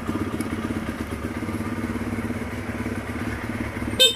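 Euro Daanhari 186 motorcycle's single-cylinder engine idling steadily. A short, loud beep cuts in just before the end.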